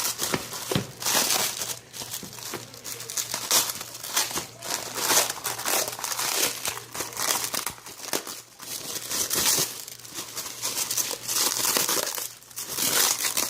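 Packaging being handled and unwrapped: irregular crinkling and rustling with some tearing, in uneven bursts throughout.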